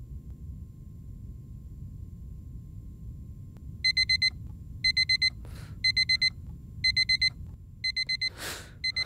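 Alarm clock beeping in quick groups of four, about one group a second, starting about four seconds in over a low steady drone. A rushing whoosh cuts in near the end.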